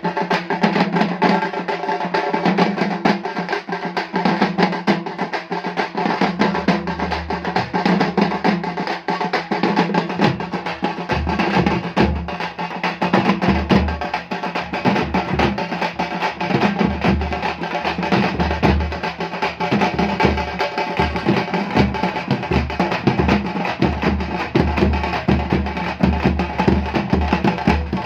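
Tamil kuthu drum ensemble (Chennai drums) playing a fast, dense beat of sharp, rapid strokes; deep bass drum thumps join about seven seconds in and settle into a regular pulse.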